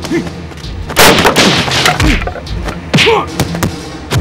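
Dubbed fight-scene sound effects: a loud crashing blast about a second in that dies away over a second, and a second strong hit about three seconds in, with short falling cries between them.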